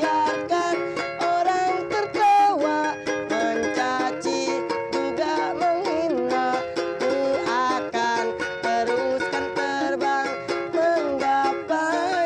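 A man singing a song to his own ukulele accompaniment, the voice holding and sliding between notes over the plucked strings.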